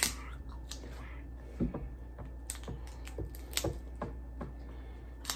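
Dungeness crab shell being cracked and picked apart by hand: a string of sharp, separate clicks and cracks, the loudest at the very start, then about a dozen smaller ones at uneven intervals.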